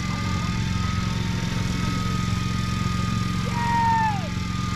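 A diesel boat engine running steadily, with a thin, steady electric-reel motor whine above it. About three and a half seconds in, a louder whine starts, then drops in pitch and stops after under a second.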